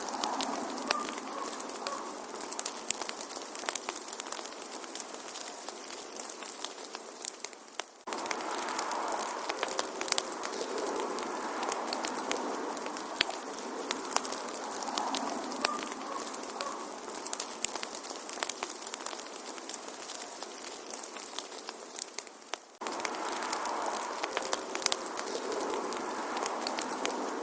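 Wood fire in a fireplace crackling, with dense sharp pops and snaps over a steady hiss. The crackling fades slightly and then cuts back in abruptly twice, about fifteen seconds apart.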